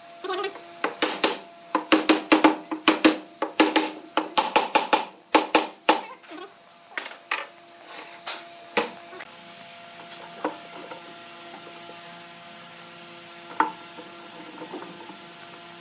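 Quick sharp knocks and clatter of wooden pieces striking one another, dense for about nine seconds and then only a few scattered taps, over a faint steady hum.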